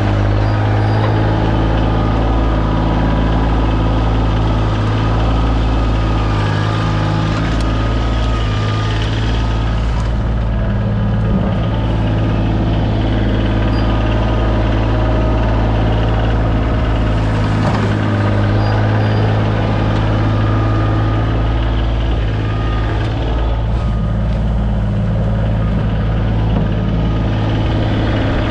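Kioti CX2510 sub-compact tractor's diesel engine running at a steady speed.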